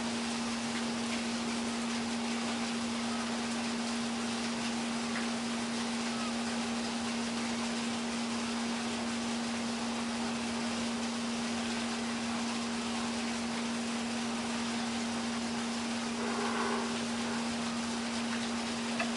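A steady hum at one constant pitch over an even hiss, unchanging throughout, with a brief faint sound about three-quarters of the way through.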